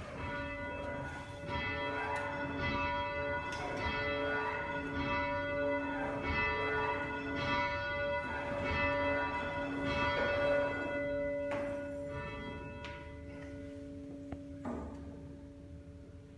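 Bell St. Michael, an 860-pound church bell, tolled by hand with a rope: it strikes a little more than once a second, each stroke ringing over the last. About twelve seconds in the strokes stop and the bell's hum rings on and slowly fades.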